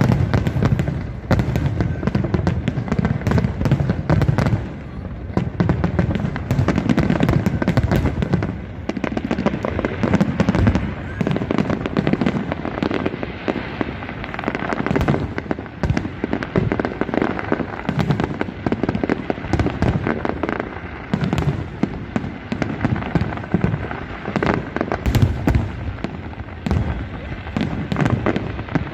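Large aerial fireworks display: shells bursting in a dense, continuous barrage, many sharp cracks over deep booms, with no pause.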